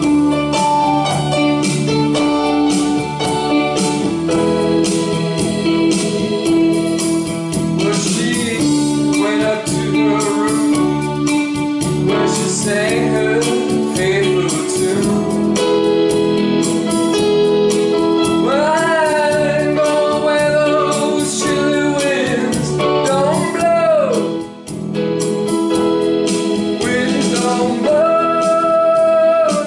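Rock band music with keyboards, organ-like held chords and singing, loud and continuous, with a long wavering held note in the second half.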